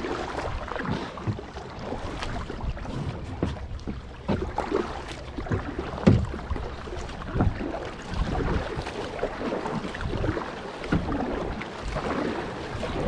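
Kayak paddling: paddle blades dipping and splashing with water dripping off them, and irregular knocks, the sharpest about six seconds in.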